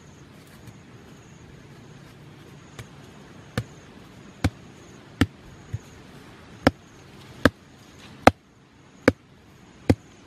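A heavy wooden stick used as a mallet, pounding a wooden stake into the ground. About nine sharp knocks come a little under a second apart, starting a few seconds in and growing louder.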